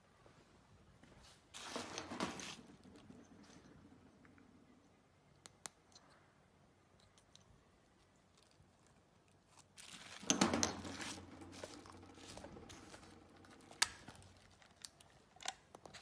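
Bubble wrap and plastic packaging crinkling in two bursts, about two seconds in and again about ten seconds in, with a few sharp clicks between.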